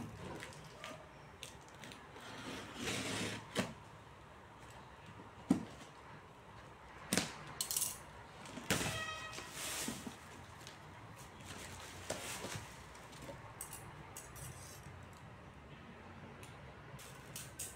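A cardboard shipping box being opened by hand: a box cutter slitting the packing tape, tape pulled off the cardboard, and the flaps handled. The sound comes as scattered scrapes, rustles and clicks, with one short squeaky tear about halfway through.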